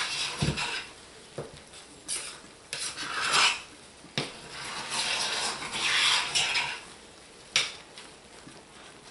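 A metal spoon stirring and scraping thick, fully cooked hot-process soap around the crockpot's ceramic insert, in several scraping strokes with a few sharp clicks of spoon against crock.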